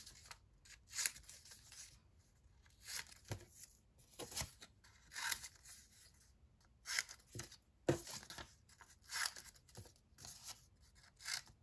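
Scissors snipping through paper strips in short separate cuts, about one every second or so, with paper rustling as the cut pieces are handled and laid down.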